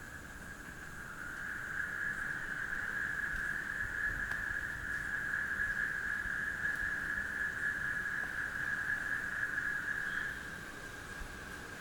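Night insect chorus of crickets: a continuous high, even trill that swells louder about a second in and falls back near the end.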